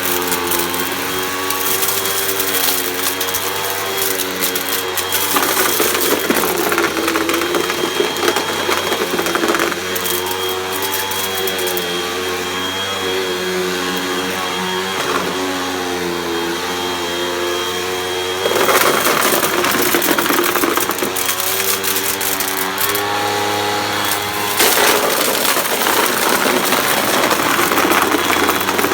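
Hoover vacuum cleaner running, its motor humming with a slightly wavering pitch and a steady high whine. Louder rushing stretches come twice in the second half.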